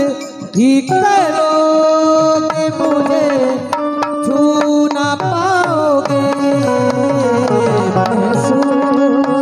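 Instrumental interlude of a harmonium holding long steady chords over a hand-drum rhythm. About halfway through, a run of quick bass drum strokes each slide down in pitch.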